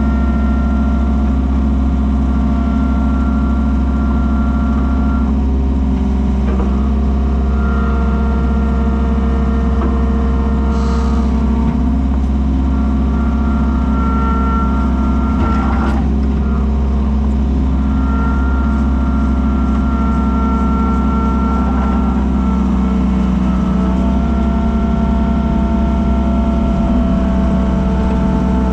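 Komatsu skid steer's diesel engine running steadily, its pitch shifting slightly a few times, with a couple of brief sharp clanks about eleven and sixteen seconds in.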